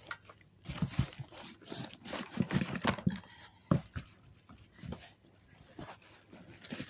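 A sewing machine being pulled out of its box: cardboard and packing material rustle and scrape, with a run of knocks and a sharp thump a little under four seconds in.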